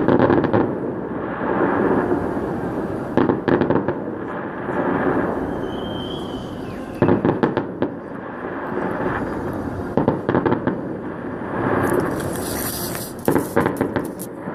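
Fireworks salute: shell bursts booming in a continuous rolling rumble, with clusters of sharp crackling reports about every three to four seconds and a brief hissing crackle near the end.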